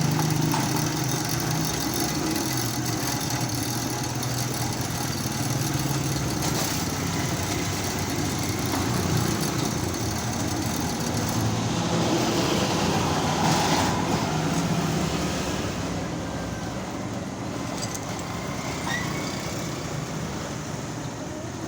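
A motor vehicle engine running steadily, with a low hum and general noise around it, easing off a little near the end.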